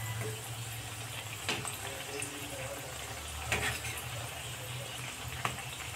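Mathri deep-frying in oil on a low flame: a gentle, steady sizzle, with a few light clicks of a utensil against the pan as the pieces are turned.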